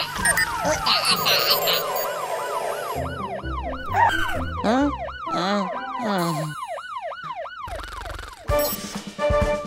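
Cartoon fire engine siren wailing in quick rise-and-fall sweeps, several a second, over background music. It stops about two-thirds of the way in.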